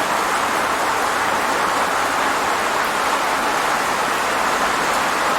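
Steady rain falling: an even hiss with no single drops or thunder standing out.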